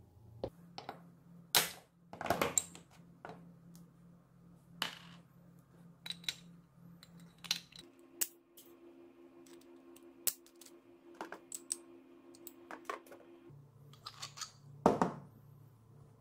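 Small metal parts of a motorcycle starter motor being worked with pliers and handled: scattered sharp clicks and clinks of metal on the aluminium housing, loudest about a second and a half in and again near the end.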